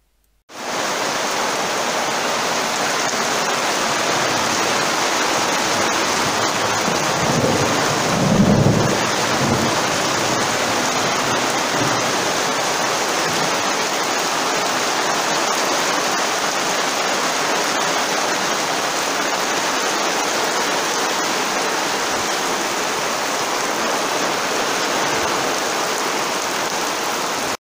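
Heavy thunderstorm rain pouring down steadily, with one low roll of thunder about eight seconds in.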